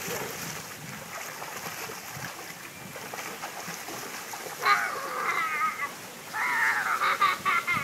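Rushing, churning water of a swimming pool's current channel, with splashing. About five seconds in, a young child's high-pitched voice calls out twice, each time for about a second, with a wavering pitch.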